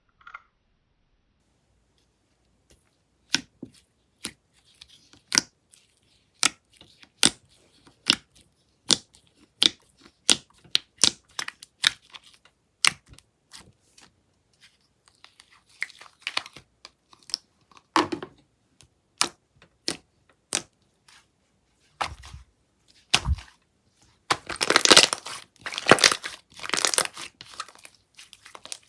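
Slime being pressed and stretched by hand, giving sharp pops about once a second. Near the end comes a few seconds of dense crackling and crinkling.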